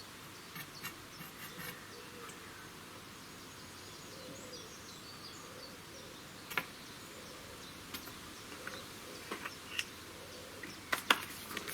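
Faint steady outdoor background noise with a few scattered light clicks and knocks.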